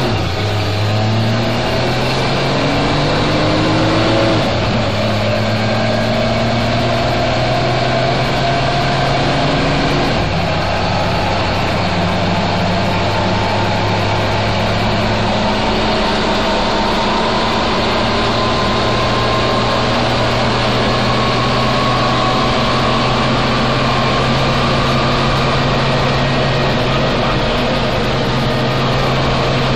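1952 GMC XM211 truck's engine and drivetrain heard from inside the cab while pulling away and driving: the engine pitch climbs and drops back twice, about four and ten seconds in, as the freshly swapped transmission upshifts. It then runs at a steady cruise, with a fainter whine rising slowly as road speed builds.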